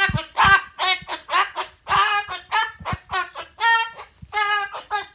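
Umbrella cockatoo calling in a quick string of short pitched syllables, about three a second.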